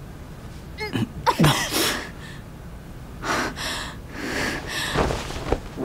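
Several short, breathy vocal bursts: startled gasps and exclamations, one with a sharply falling pitch.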